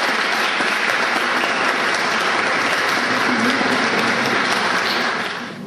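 Audience applauding steadily, dying away about five seconds in.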